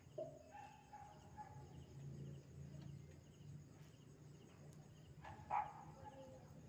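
A dog barking: a short falling yelp just after the start and a louder bark about five and a half seconds in, over a low steady hum.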